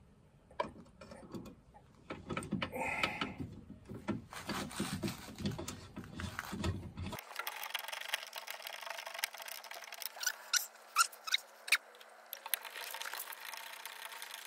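A Torx bit on an extension being turned by hand to start the door hinge bolts of a car door, with metal scraping and rubbing. Scattered sharp clicks grow more frequent in the second half.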